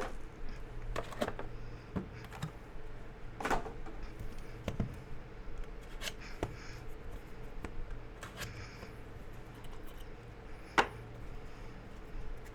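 Hockey card box and its packaging being handled and opened by hand: scattered rustles and light clicks, with one sharp click a little before the end, over a steady low electrical hum.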